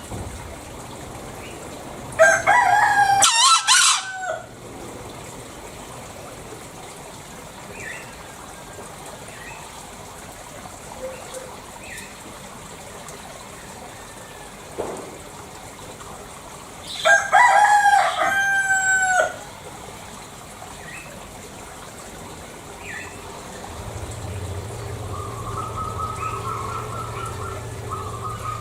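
Green junglefowl (Gallus varius) rooster crowing twice, each crow about two seconds long, one about two seconds in and one about seventeen seconds in, with a few faint short calls between. A steady low hum comes in near the end.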